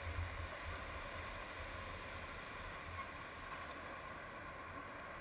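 Steady rush of water and wind as a surfboard rides a wave, picked up by a camera mounted on the board, with an uneven low wind rumble that is strongest at the start.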